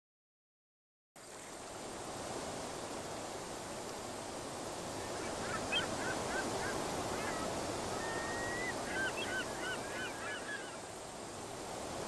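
Steady outdoor ambient noise, cutting in after a second of silence, with a group of birds calling in short, quickly repeated notes from about five seconds in until about a second before the end. One longer, level note sounds in the middle of the calling.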